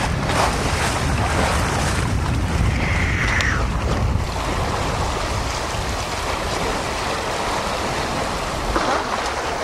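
Wind buffeting the microphone and water washing along the hull of a sailing yacht under way, a steady rush with a low rumble that eases somewhat after the first few seconds. A short higher-pitched hiss comes about three seconds in.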